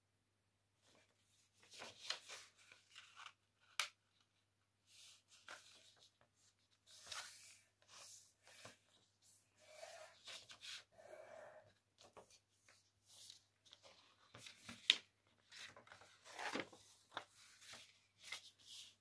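A sheet of paper being folded and creased by hand on a wooden tabletop: faint, intermittent rustling and crinkling as fingers smooth and press the folds, with a few sharper crackles, the loudest about fifteen seconds in.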